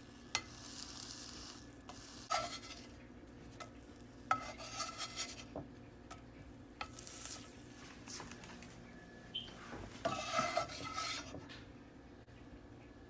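A slotted spatula scraping and knocking against a frying pan in several short bursts as a small fried egg round is worked loose and flipped. The longest scrape comes about ten seconds in.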